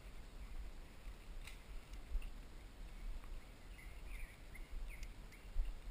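Distant chopping: a few sharp, irregular knocks from a crew cutting vegetation, with short bird chirps about four seconds in, over a steady low rumble.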